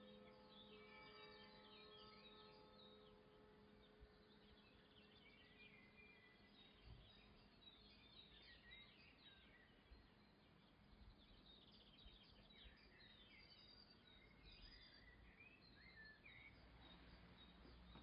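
Near silence with faint bird chirping throughout, and a low steady hum that fades out in the first few seconds.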